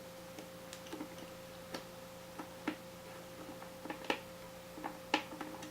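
Irregular small clicks and ticks of a hand screwdriver working the non-Phillips screws that hold the hard drive inside an opened iMac, the tip slipping and catching in the screw heads.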